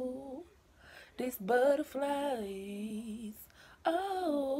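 A woman singing unaccompanied, a slow melody of long held notes that bend down in pitch, in two phrases with short breaths between them.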